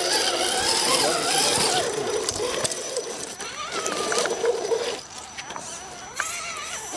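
Electric motor and gearbox of an RC scale crawler truck whining, the pitch rising and falling with the throttle as it crawls over rocks. It gets quieter about five seconds in.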